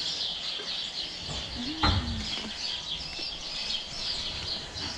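Many small birds chirping continuously, a dense high twittering throughout. A single sharp thump about two seconds in is the loudest sound.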